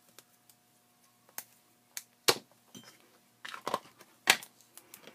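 Red vinyl electrical tape being handled on a workbench: a short rasp of tape pulled from the roll among a string of sharp clicks and knocks. The loudest knocks come a little after two seconds in and just past four seconds.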